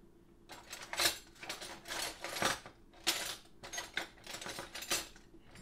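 Silicone pastry brush beating egg wash in a small glass bowl, giving a run of irregular clicks and scrapes against the glass.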